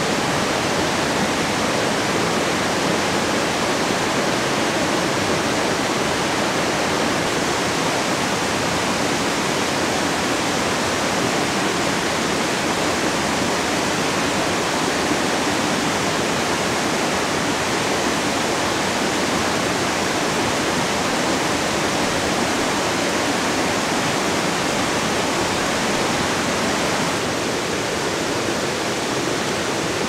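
Mountain valley stream rushing steadily, an even wash of flowing water, a little softer for the last few seconds.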